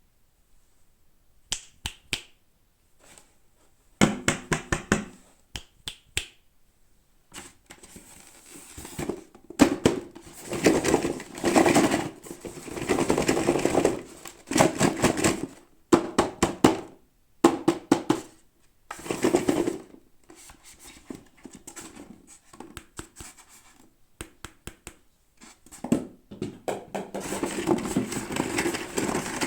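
Toy packaging being handled and opened by hand: sharp clicks and quick runs of taps alternating with stretches of rustling and crinkling plastic and cardboard.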